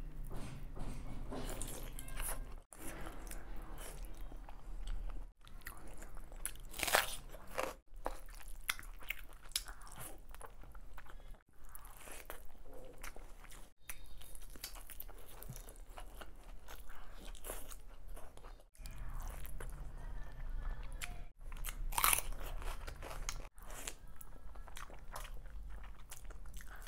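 Close-miked eating sounds: a person biting and chewing chicken biryani eaten by hand, with crunching bites and chewing. It comes in short cuts separated by brief drop-outs.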